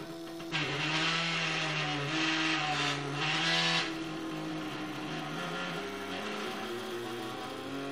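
Stepper motors of a homemade pen plotter whining as they drive the pen across the paper, their steady tones shifting in pitch as the head changes speed and direction. A harsher hiss rides over the whine from about half a second in until about four seconds in.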